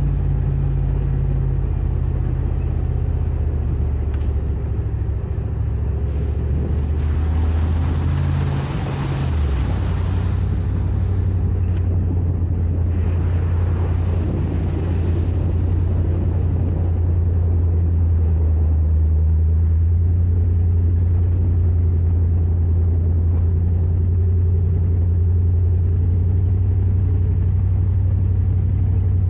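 Vehicle engine running steadily at low revs while driving, with a shift in engine pitch about nine seconds in. Two stretches of louder hiss rise over the drone between about seven and sixteen seconds in.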